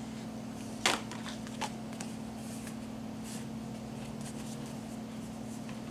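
Paper instructions being opened and handled: light rustling with a sharp click about a second in and a smaller one shortly after, over a steady low hum.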